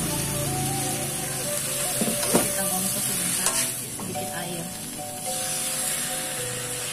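Chicken intestines sizzling in oil as they are stir-fried in a metal wok. A metal spatula knocks and scrapes against the pan a few times between about two and three and a half seconds in.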